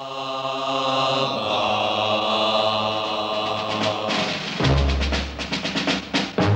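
Television theme music: a long held chord, then about four seconds in drums come in with a fast, driving rhythm and heavy low beats.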